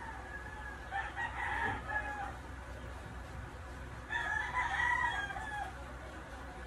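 A rooster crowing twice, each crow lasting about a second and a half, the second about three seconds after the first.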